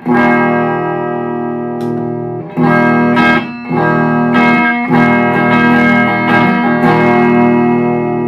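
Electric guitar on its bridge pickup played through an Orange Baby Terror solid-state amp head into a Celestion Neo 12-inch speaker, with the gain turned up and the tubby switch on for extra mids and low end: a few chords strummed and left ringing.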